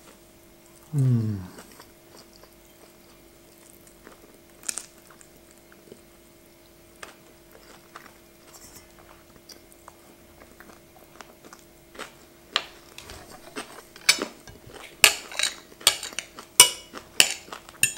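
Knife and fork clicking and scraping against a plate, sharp clinks coming thicker and louder over the last five seconds. Before that, quiet chewing and a few light clicks over a steady faint hum.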